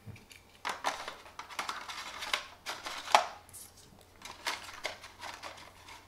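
Hands handling unboxing contents on a table: paper instruction cards and the cardboard box moved about, with scattered clicks and taps as items are picked up and set down. The sharpest tap comes about three seconds in.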